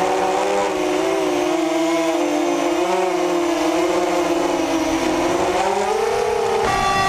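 ZMR250 FPV racing quadcopter's brushless motors and 6x4 propellers whining, the pitch wavering up and down with the throttle and rising shortly before the end. Music cuts in near the end.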